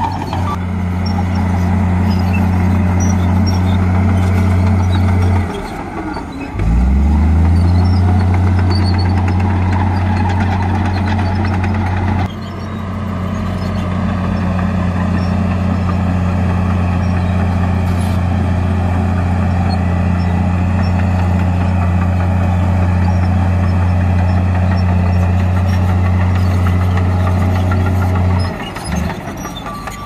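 Komatsu crawler bulldozer's diesel engine running hard as it pushes soil, a loud steady low drone. About six seconds in and again near the end the engine note drops and climbs back up.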